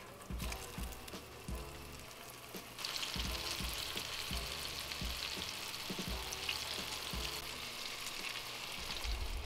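Battered pike fillets sizzling in hot oil in a frying pan. The sizzle grows louder and brighter about three seconds in. A low thump recurs about twice a second underneath.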